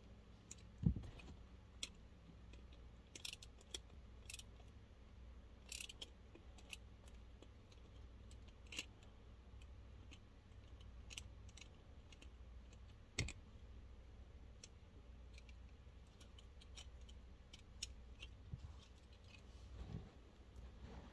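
Irregular small clicks and taps of toy parts and hardware being handled during disassembly. Two louder knocks come about a second in and near the middle.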